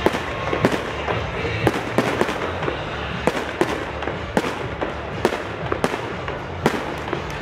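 New Year's fireworks and firecrackers going off: a dozen or so sharp bangs at irregular intervals over a steady background din.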